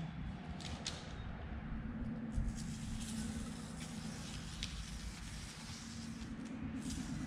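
Paper template and masking tape being handled and pressed down, with a few light ticks and one thump about two and a half seconds in, over a steady low hum.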